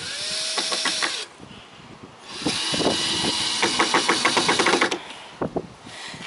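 Cordless drill driving screws into pallet wood in two runs, a short one and then one of about two and a half seconds. The second run ends in a fast series of clicks, the drill's clutch ratcheting as the screw seats.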